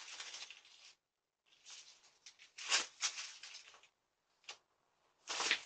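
Rustling and scuffling noises in several separate bursts, a few of them sharper and louder, picked up by a doorbell camera's microphone, which cuts each burst off abruptly to silence.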